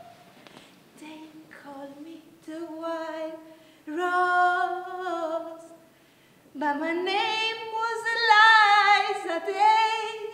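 A woman singing unaccompanied in several short phrases of held notes, the last and longest phrase, starting past halfway, the loudest, with a wavering vibrato on its high notes.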